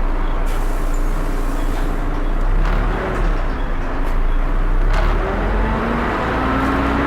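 Volvo B7TL bus running, its engine-cooling fan making a loud hoover-like whine over a low diesel rumble. About five seconds in, a whine begins to rise steadily in pitch.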